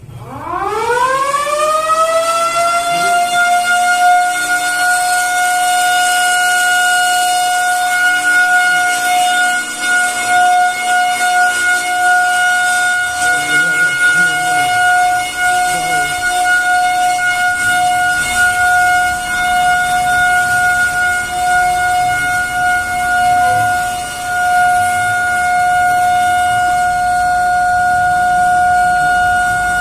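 A mushola's fast-breaking siren (gaok) winds up from a low growl to full pitch in about a second and a half. It then holds one steady, loud wail.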